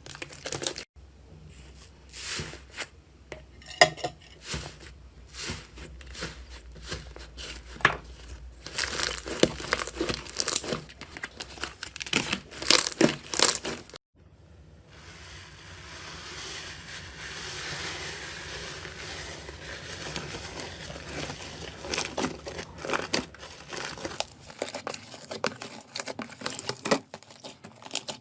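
Slime being squeezed and worked by hand, crackling and popping in quick irregular clicks. After a sudden break about halfway, a steadier crinkling rustle with scattered pops takes over.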